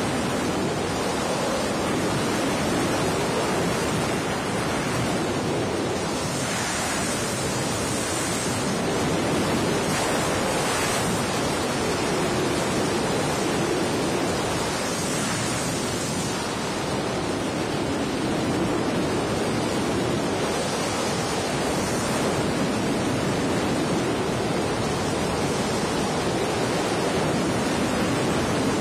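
Strong wind rushing steadily over the microphone, with slight surges and no let-up.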